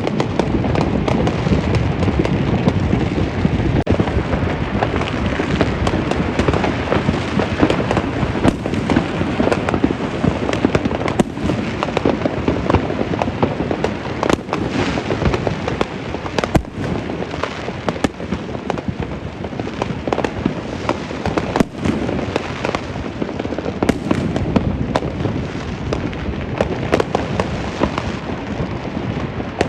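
Dense barrage of consumer fireworks and firecrackers going off at once: a continuous crackling din with sharper single bangs standing out every second or two.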